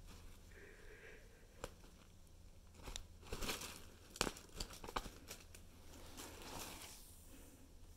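Nylon cat tunnel rustling and crinkling in scattered bursts as a cat moves and paws inside it.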